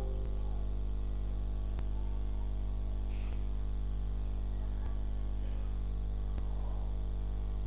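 Steady electrical hum, like mains hum in the recording chain, with a few faint clicks.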